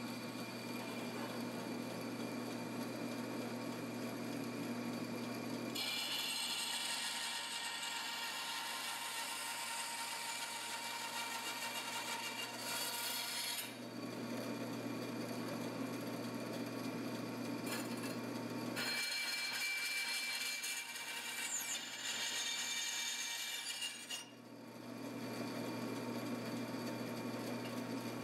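Bandsaw converted from wood to metal cutting, running with a steady motor hum while its blade cuts 1/8-inch steel. The cutting is a high hiss that comes in long stretches: from about six seconds in to about fourteen, again from about nineteen to twenty-four, and once more near the end.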